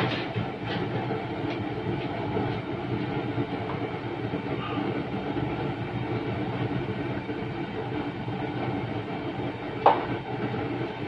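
A gas burner running on a high flame, a steady rushing noise, as it heats a cast-iron sizzling plate. A single sharp knock comes near the end.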